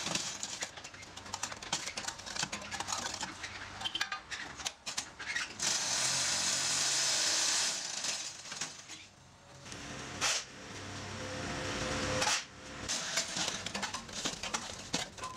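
Hand-operated Doubell Jumbo MK2 concrete block-making machine at work: irregular metal clanks, knocks and rattles from its steel frame and mould, with a stretch of grating, scraping noise about halfway through.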